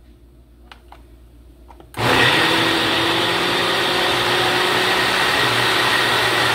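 Countertop high-speed blender motor switching on about two seconds in and running steadily at full speed, blending chunky ingredients with water into a smooth purée.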